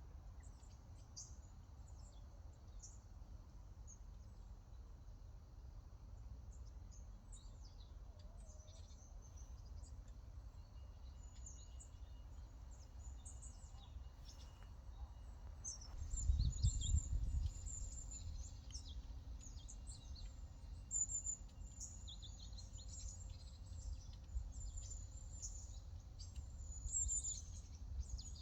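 Small birds chirping and twittering in many short, high calls, sparse at first and busier in the second half, over a steady low rumble that swells briefly about halfway through.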